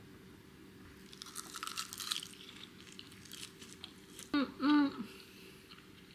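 Crisp crackling as a roasted seaweed (gim) wrap of fried rice is bitten and chewed about a second in, then two short pleased 'mm-mm' hums through a full mouth a little past the middle.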